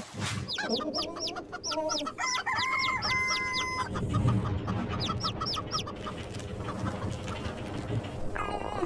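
Chickens calling: a run of short, high chirps, with one longer held call from about two to four seconds in.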